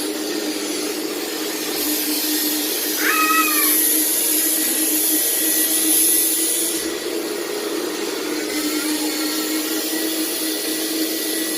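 Household electric vacuum cleaner running steadily with a constant hum, its high hiss swelling for a few seconds in the middle. A brief high squeal about three seconds in.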